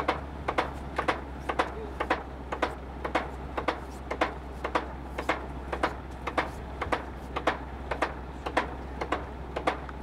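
Railway rotary snowplow running slowly toward the listener: a steady low engine hum under a rapid, even clicking of about three clicks a second.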